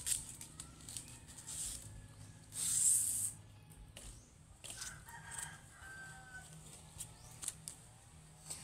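A knife stripping the leaf blade from a coconut leaf midrib, with light rustles and clicks and one loud rasping tear about two and a half seconds in. A rooster crows faintly about five seconds in.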